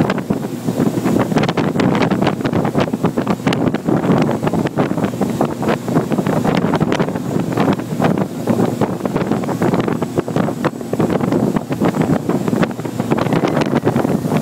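Wind buffeting the microphone aboard a speeding motorboat, with the rush of water from the boat's wake.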